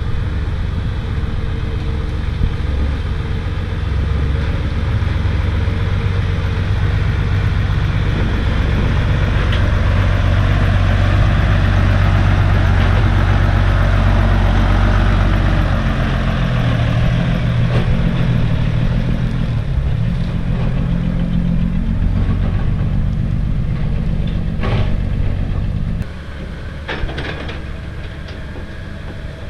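Diesel engine of a loaded six-wheel Isuzu Forward dump truck running close by, loudest about halfway through. Near the end it gives way to the quieter engine of a Komatsu 130 excavator, with a few short knocks.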